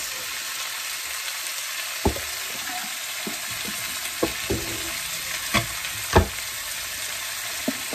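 Diced chicken and onion sizzling steadily in a hot wok, stirred with a wooden spatula that knocks against the wok about six times; the loudest knock comes about six seconds in.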